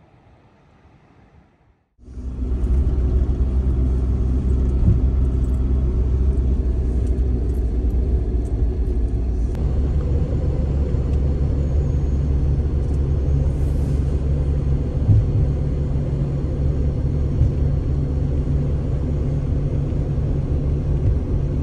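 Engine and road noise of a moving car heard from inside the cabin, a steady low rumble that starts suddenly about two seconds in after a faint quiet stretch.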